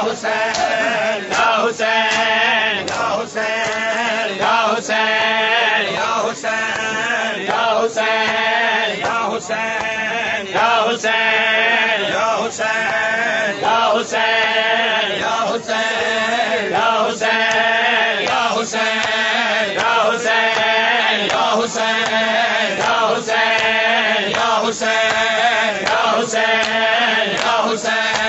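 Men's voices chanting a noha, a Shia lament, over rhythmic chest-beating (matam) that lands about once a second.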